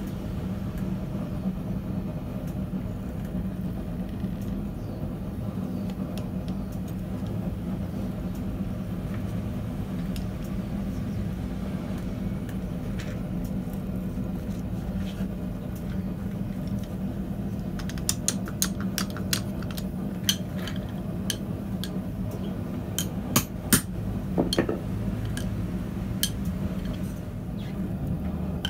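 Hot steel bar being worked in a steel pin-type bending jig, with a run of sharp metallic clinks and knocks about two-thirds of the way through as the bar and pins strike the steel plate. A steady low drone runs underneath.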